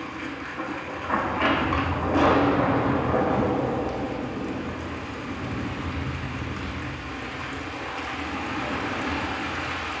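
Sony HT-IV300 5.1-channel home theater speakers playing a cinematic demo soundtrack, picked up in the room. A deep rumble swells about a second in, peaks around two seconds, then eases into a steady low rumble.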